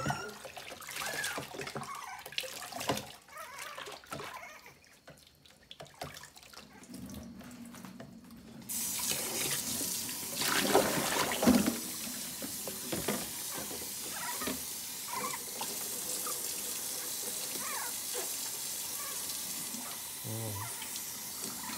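Kitchen sink faucet turned on about nine seconds in and running steadily, the stream splashing over a Pomeranian puppy being rinsed in the sink. Before that, quieter splashing and handling in the water-filled basin.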